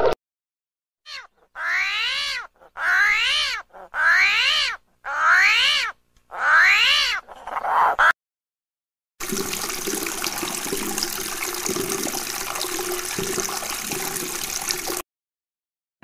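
An animal calling about six times in quick succession, each call rising and then falling in pitch, followed by a steady rushing noise that cuts off abruptly.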